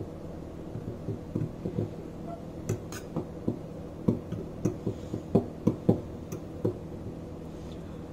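Metal fork stirring a dry flour and spice mix in a glass bowl, its tines tapping and scraping against the glass in irregular clicks that stop near the end.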